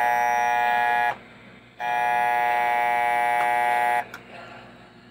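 American Flyer whistling billboard sounding its imitation diesel horn: a steady horn tone that cuts off about a second in, then a second blast of about two seconds.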